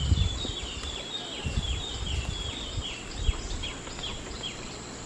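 A bird calling a fast series of short downward-sliding notes, about three a second, slowing and fading near the end. A steady high insect drone runs underneath, with some low rumbles of wind or handling on the microphone.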